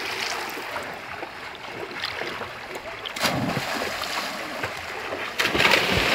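A person jumping into a river lands with a loud splash about three seconds in, followed by more splashing from swimming near the end, over the steady rush of the flowing river.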